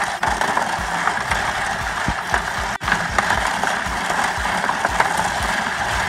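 Plastic gears of a hand-cranked toy derby playset ratcheting and rattling steadily as the crank is turned, with many small irregular clicks while the turntable spins the mini racer cars around.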